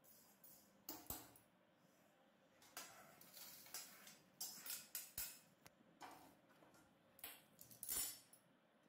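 Faint metal clinks and scrapes of a steel spoon against an iron kadai, with spice seeds rattling as they are tipped onto a stainless-steel plate. The sharp clinks come about a second in, around five seconds in, and loudest near the end.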